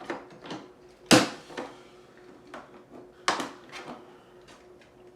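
Hard plastic parts of a cordless shop vacuum being handled and fitted together: a series of clicks and knocks, the loudest about a second in and another just after three seconds.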